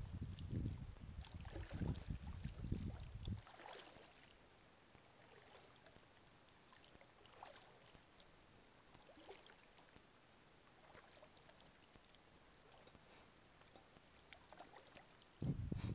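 Water sloshing and splashing softly as someone wades through shallow water over a reef flat, with scattered faint splashes and trickles. A low rumble runs through the first three seconds or so and comes back near the end.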